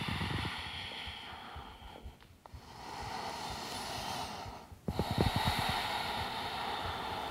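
A woman breathing audibly in long, slow breaths, about three in a row, each a soft steady rush of air broken by a short pause.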